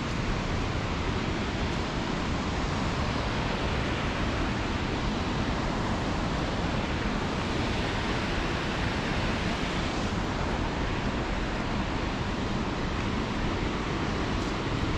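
Steady, unbroken rushing of a waterfall and its river.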